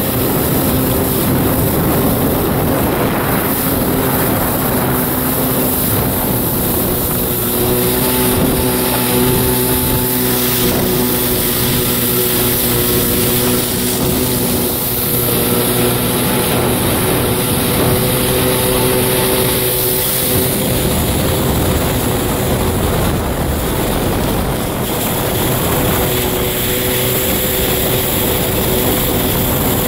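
1993 Kawasaki 650SX stand-up jet ski's two-stroke twin running steadily under way, with the rush of water spray and wind over it. The engine note shifts slightly about twenty seconds in.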